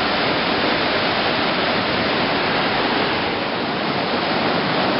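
Vernal Fall pounding onto the rocks at its base: a steady, loud rush of falling water and spray.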